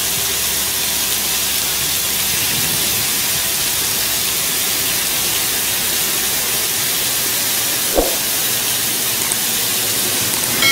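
Marinated paneer slices sizzling on a hot ridged grill pan, a steady hiss. A single light knock about eight seconds in.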